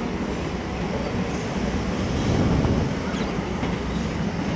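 Passenger coach wheels rumbling and clattering steadily over the rails, heard from an open coach doorway as the express rolls into a station.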